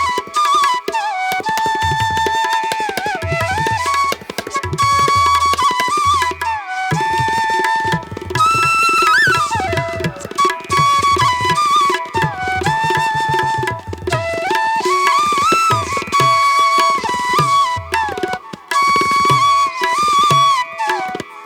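Instrumental music: a flute-like melody with bending notes over tabla-style hand drums.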